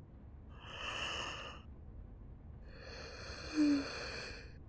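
A woman breathing drowsily: a breath in about half a second in, then a longer sighing breath out from about three seconds in, with a brief soft voiced note in the middle of it.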